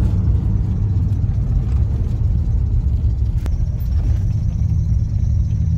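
Steady low road and engine rumble heard inside a moving vehicle's cabin while driving.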